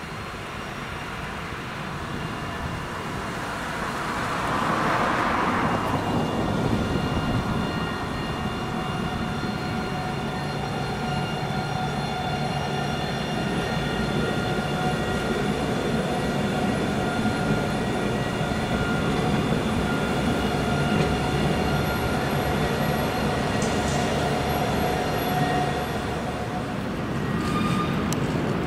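Alstom Citadis 402 tram passing slowly, a low rumble of wheels on rail under a steady high whine of several tones.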